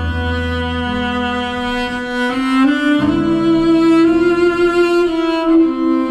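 Background music on bowed strings, violin and cello, playing slow held notes that change pitch every second or two.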